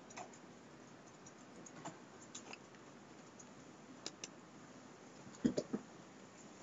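Sparse faint clicks of a computer keyboard and mouse, with a louder group of about three knocks about five and a half seconds in.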